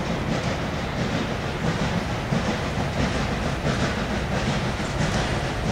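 Steam locomotive hauling a passenger train just after starting away, its exhaust beats in an even, quick rhythm of about four to five a second over a steady low rumble.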